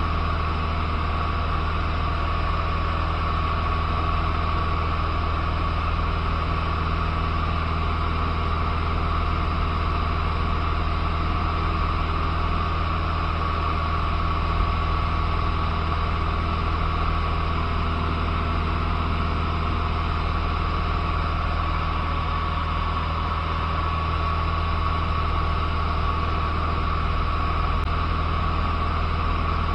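Cabin noise of a Cessna 150 in cruise: the four-cylinder Continental O-200 engine and propeller droning steadily, with a thin steady whine above the drone.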